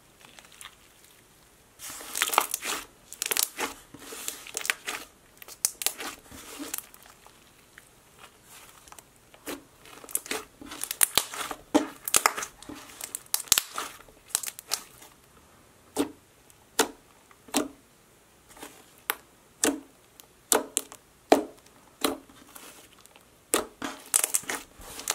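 Somewhat rubbery glitter slime being squeezed, folded and pressed by hand, giving runs of sharp sticky pops and crackles with short pauses between them, starting about two seconds in.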